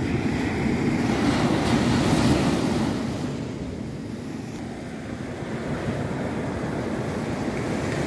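Ocean waves breaking and washing up a sandy beach, with wind buffeting the microphone. The wash swells over the first few seconds, eases off around the middle, then builds again.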